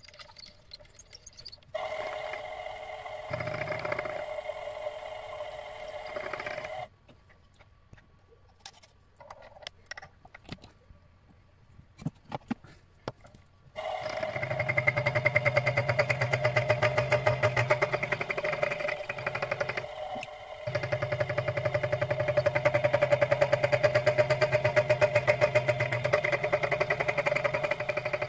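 Small motor running steadily. It starts about two seconds in, stops before seven seconds, and starts again around fourteen seconds, with a short dip near twenty seconds. Light clicks and knocks fill the pause between the two runs.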